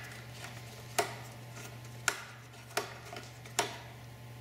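Sharp single clicks, about one a second, from a 3/32-inch Allen wrench being turned in the retaining screw of a panel-mounted avionics unit as the screw is backed out to release the unit from its rack. A faint steady low hum runs underneath.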